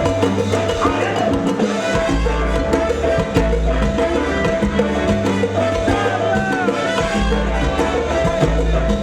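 Salsa band playing, with a repeating bass line and regular percussion strokes under the steady mid-range instrumental parts.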